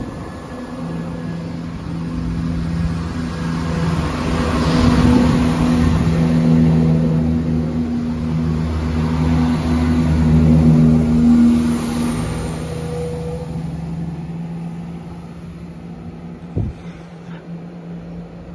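ScotRail Class 170 Turbostar diesel multiple unit's underfloor diesel engines working under power as the train pulls away from the platform. The steady engine note grows louder, then fades from about two-thirds of the way through as the train draws off. A single short knock comes near the end.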